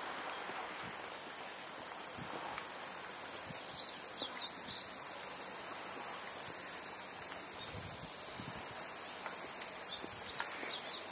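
Steady high-pitched drone of a summer insect chorus, with a few short rising bird chirps about three to five seconds in and again near the end.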